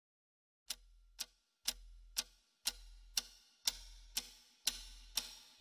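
Ticking-clock sound effect: a sharp tick-tock pair about once a second, each pair over a deep low pulse, starting about a second in and getting steadily louder.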